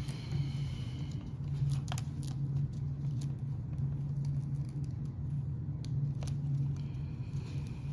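A steady low hum with a few light clicks and ticks of small parts being handled, about two seconds in and again about six seconds in.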